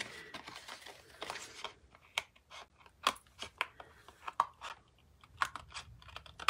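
Scissors snipping through card stock in a string of short, irregular cuts, trimming overhanging paper flush with a card's edge.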